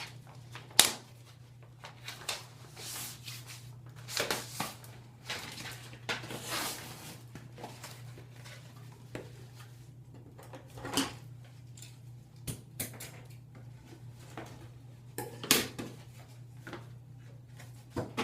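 Scattered clicks and rustles from handling a pack of synthetic braiding hair, the sharpest click just under a second in, over a steady low hum.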